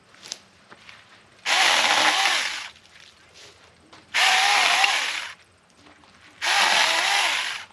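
Saker mini battery electric chainsaw running in three bursts of about a second each, its motor whine wavering in pitch during each one.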